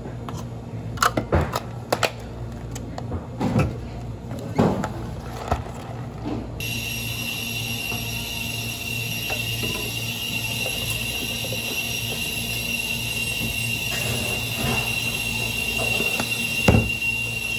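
Cups and barista tools clicking and knocking on a café counter, several sharp knocks in the first few seconds over a low hum. Then a steady high-pitched whine with a hiss that slowly grows louder while liquid is poured into a blender jug.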